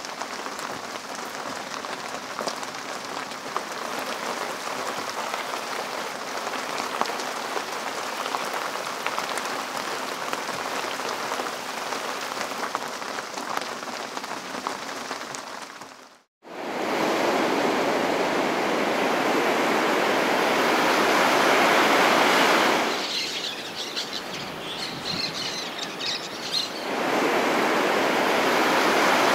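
Rain pattering on a sailboat's deck hatch, heard from inside the cabin. About sixteen seconds in it cuts to a louder, steady rush of heavy rain falling on open water, which eases for a few seconds with high chirps in it before swelling again.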